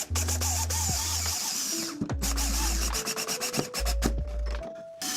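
Power drill running in short spurts, driving screws into the stair railing, over background music with a deep bass line.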